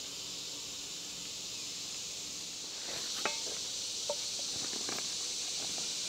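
Steady chorus of insects in summer woods, getting a little louder about halfway through. A few short clinks and knocks of camp cookware being handled and set down come over it in the second half.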